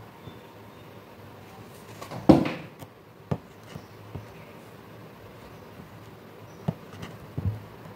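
Aari hook needle punching in and out of cloth held taut for embroidery, giving a few sharp ticks and one louder thump about two seconds in, over a faint steady hum.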